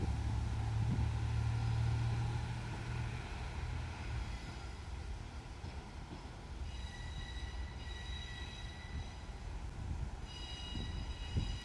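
A JR Shikoku Series 1500 diesel railcar moving slowly away, its engine rumble fading over the first few seconds. After that, high-pitched squealing comes in twice, about seven seconds in and again near the end.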